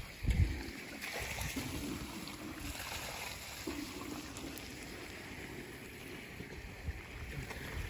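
Garden hose water hissing steadily, strongest in the first few seconds and then fading. A brief low rumble comes about half a second in.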